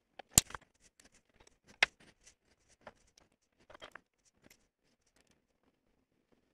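A steel rule, pen and aluminum plate being handled on a bench while the plate is marked out. Scattered light clicks and taps, with two sharp clicks about half a second and two seconds in and a few softer taps near four seconds.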